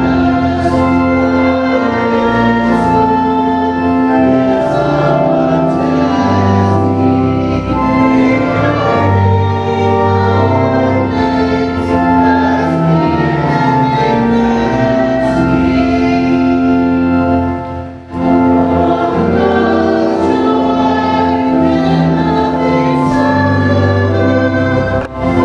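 A hymn sung by voices together with instrumental accompaniment, in long held chords, with two brief breaks between phrases: one about two-thirds of the way in and one near the end.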